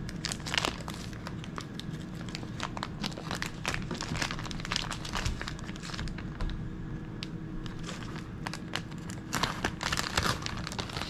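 Crinkling and rustling handling noises as raw bacon slices are taken up and pulled apart, in quick irregular bursts that grow busier near the end, over a steady low hum.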